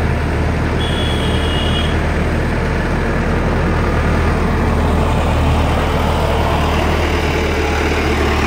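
Heavy diesel engine running steadily at an even speed. A brief high tone sounds about a second in.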